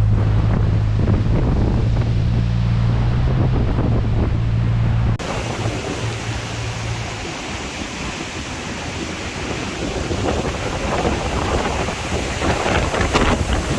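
A 4WD's engine drones steadily for about five seconds. Then the sound cuts abruptly to the loud, even rushing of a fast-flowing river swollen with rain.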